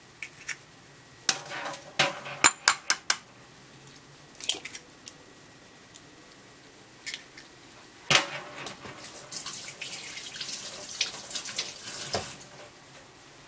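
Kitchen dishes and utensils clattering in a quick series of sharp clinks, then a tap running for about four seconds from about eight seconds in, cutting off abruptly.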